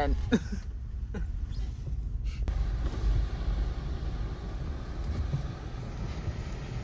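Car driving through a snowstorm, heard from inside the cabin: a steady low road and engine rumble, joined about two and a half seconds in by an even rushing hiss of wind and road noise.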